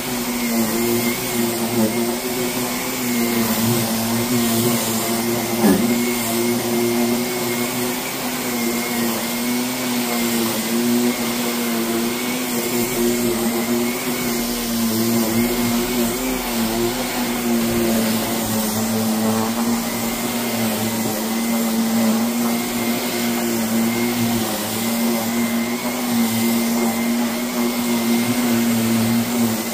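A motor-driven machine, like a vacuum, running steadily with a constant pitch. A short knock about six seconds in.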